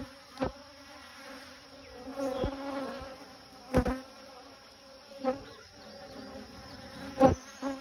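Honeybees buzzing over an open hive, a steady hum that swells louder about five times as individual bees come close.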